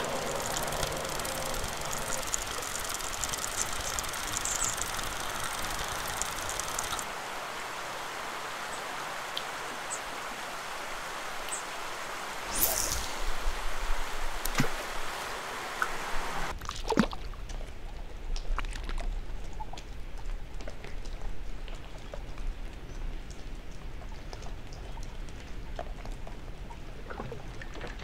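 Flowing river water, a steady rush and trickle. The sound changes abruptly at cuts about seven, twelve and sixteen seconds in; after the last it is quieter, with a low rumble and scattered small clicks.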